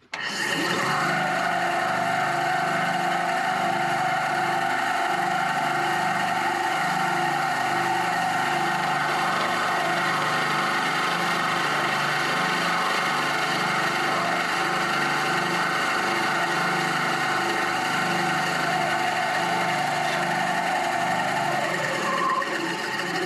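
Bandsaw switched on and running steadily while cutting a Christmas-tree shape out of African mahogany. Its tone shifts slightly near the end.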